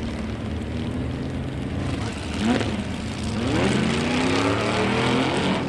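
Stock-bodied street cars set up for drag racing, their engines running with a steady drone. The engine note climbs in pitch twice, about two and three and a half seconds in, as they rev and accelerate, the second time settling on a higher steady note.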